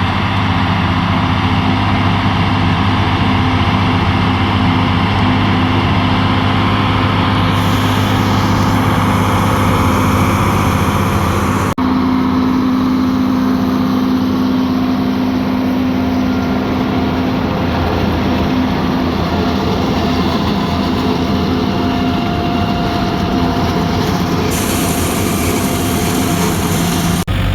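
Tractor engine running steadily under load during corn-silage chopping. There is a sudden change in the engine note about twelve seconds in, where one shot cuts to another.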